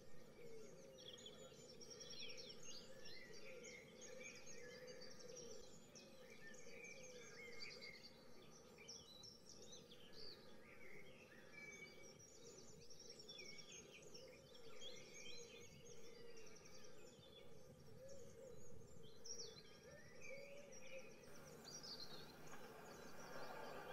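Faint added countryside ambience: many small birds chirping and twittering in quick short calls, over a low steady hum.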